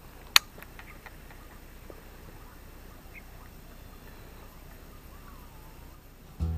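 A single sharp click about half a second in, followed by a few faint ticks over a quiet, steady outdoor background. Guitar music starts near the end.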